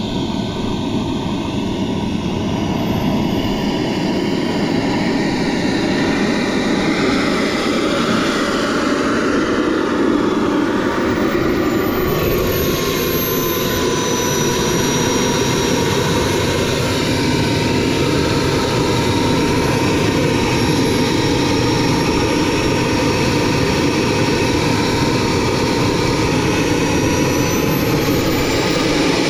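Kingtech K102G4+ model jet turbine running with a steady roar and a thin whine. The whine drops in pitch about twelve seconds in, holds steady, then climbs again near the end as the throttle changes.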